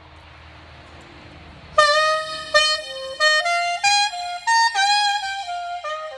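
Curved Dixon soprano saxophone played on its thin, close-tipped stock mouthpiece through a small busker amp with reverb: a melodic phrase of separate notes stepping up and down, starting about two seconds in after a soft hiss.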